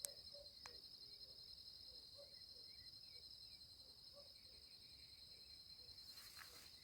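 Faint, steady nighttime chorus of crickets, a continuous high pulsing trill, with scattered faint lower chirps. A sharp click right at the start and another just under a second in, and a short hiss about six seconds in.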